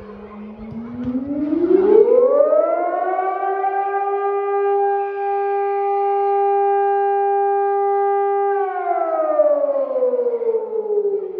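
Civil defence warning siren sounding in a scheduled test of the public warning system. It rises in pitch over about three seconds, holds one steady tone for about four seconds, then glides down over the last few seconds.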